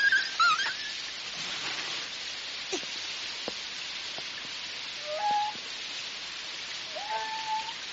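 Steady rain hiss in the cartoon's soundtrack, with a dog giving short whines about five seconds in and again near the end.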